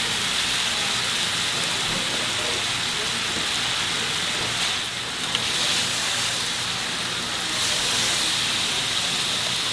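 Tteok-galbi patties sizzling steadily on a hot flat-top griddle, a continuous frying hiss that eases briefly about five seconds in.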